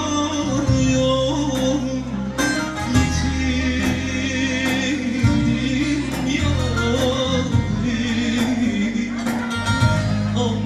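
Live band music: a man singing with vibrato over keyboards and guitar, with a regular beat.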